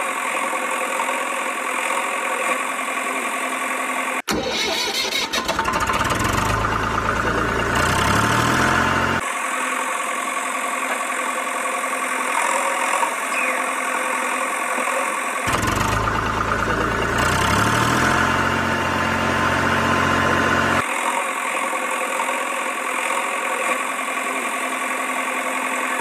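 Vehicle engine running steadily, changing abruptly in places; twice, about four seconds in and again about fifteen seconds in, it turns deeper and rises in pitch as it revs for several seconds.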